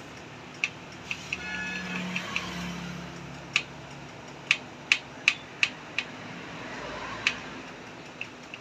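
Sharp metallic clicks of a spanner on the nuts and gears of a Royal Enfield Classic 350's open timing-gear case, about a dozen irregular clicks, with a quick run of five near the middle.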